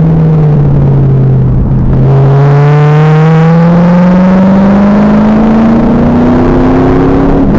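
2000 Pontiac Trans Am Firehawk's LS1 V8 running loud through its SLP exhaust. Its note sinks for about two seconds as the car slows, then climbs steadily as it accelerates through a gear, and drops suddenly near the end at an upshift.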